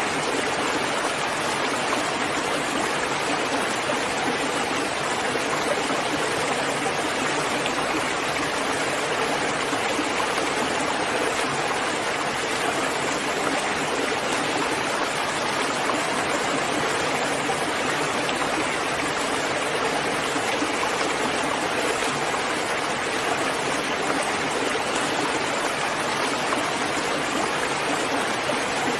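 Steady rain falling: an even, unbroken rush of water noise with no single drops standing out.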